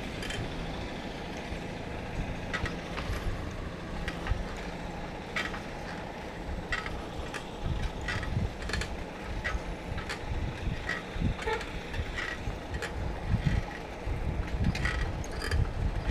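Riding noise from a bike on the move: a steady rush of wind and road noise with gusty low buffeting on the microphone, growing stronger in the second half, and frequent sharp rattles and knocks from bumps.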